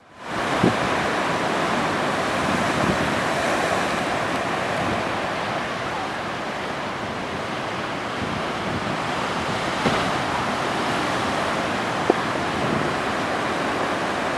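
Atlantic Ocean surf: a steady rush of waves breaking, with a few short knocks standing out briefly.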